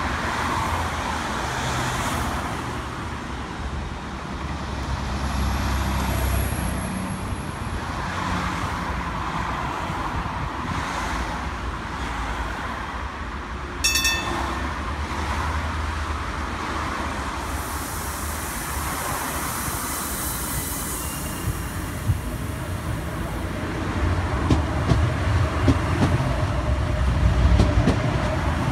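Road traffic passing a tram stop, with a Class 399 Citylink tram-train standing at the platform. About halfway through comes a short electronic chime. Near the end the sound grows louder and fuller as the tram-train moves along the platform.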